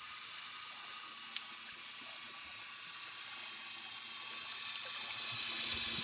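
Steady underwater hiss picked up by a submerged camera, with a faint low hum and a single sharp click about a second and a half in.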